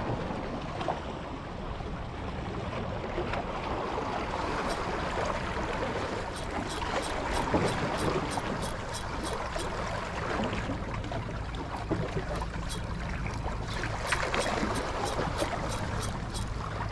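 Water lapping and sloshing with wind on the microphone, and a long run of light, quick ticks through the middle.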